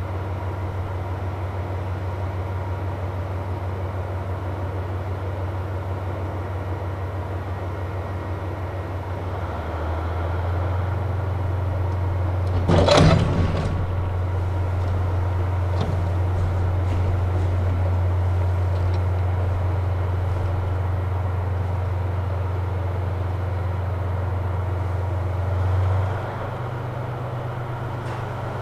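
Diesel train engine idling with a steady low drone that steps up in pitch and level about ten seconds in and shifts again near the end. A short loud rush of noise about 13 seconds in, followed by a few faint clicks.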